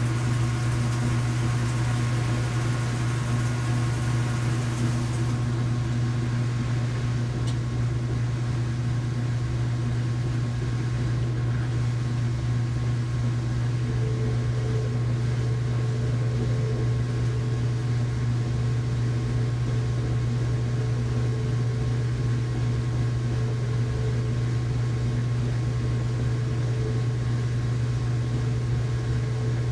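Household washing machine running its rinse cycle: a steady motor hum, with a higher hiss that drops away about five seconds in.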